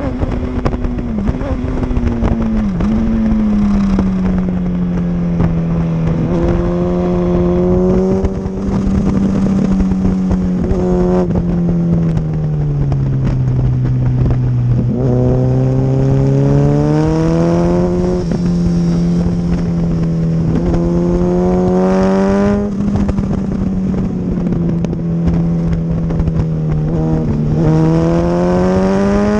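Champion 2200-watt generator's small engine running, its speed sliding down and rising again several times, with a steady engine note and a higher whine climbing each time it speeds up.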